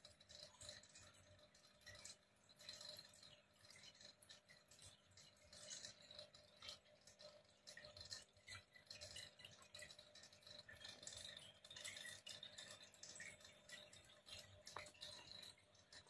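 Near silence in an aquarium: faint, irregular crackling and ticking in the water, heard as the tank's fish swim about.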